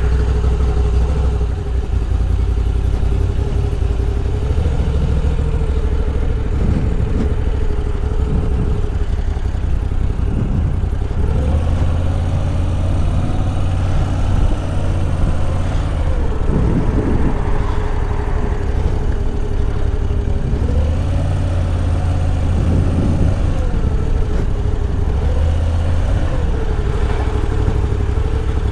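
Moto Guzzi V85 TT's 853 cc air-cooled transverse V-twin running as the bike is ridden at low speed. Its engine speed rises and falls about five times over a deep, steady rumble.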